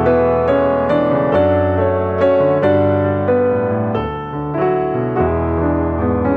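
Background piano music, slow and gentle, with sustained bass notes under a melody.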